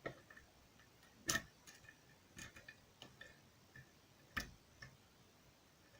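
Metal lock pick tapping and scraping across the pins of a pin-tumbler challenge lock made from a Sargent cylinder, during single pin picking: irregular small clicks, the loudest about a second in and again just past four seconds.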